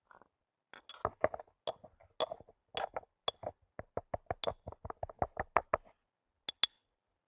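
Rapid series of short knocks, about four a second for several seconds, mixed with a few sharp metallic clinks; two more clinks near the end.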